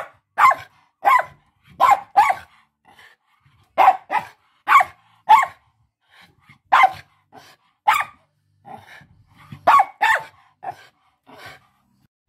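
Small poodle barking repeatedly, short barks coming in quick pairs and threes with brief pauses between, softer toward the end.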